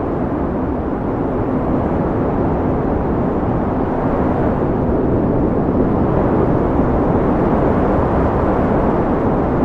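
Wind blowing in a steady, deep rushing, with little high hiss and no distinct gusts.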